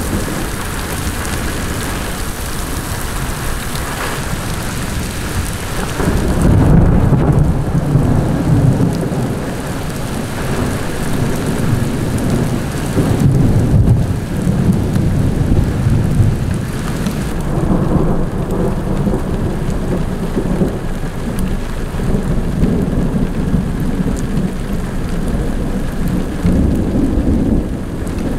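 Heavy thunderstorm downpour: rain mixed with small hail pouring down, with low rumbling thunder that gets louder about six seconds in and keeps swelling and fading.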